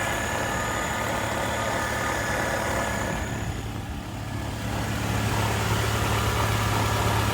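2007 Nissan Altima 2.5L four-cylinder engine idling steadily on a newly fitted serpentine belt and tensioner pulley, running smoothly. A steady high whine sits over the engine hum, which grows a little louder from about five seconds in.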